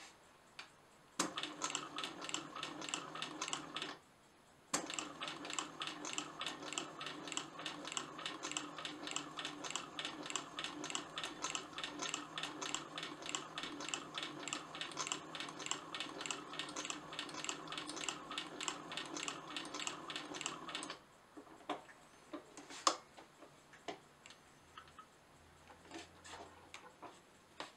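Old black Singer industrial sewing machine stitching leather: a fast, even run of clacks that starts about a second in, stops briefly near four seconds, runs on and stops about three-quarters of the way through, leaving a few scattered clicks and knocks.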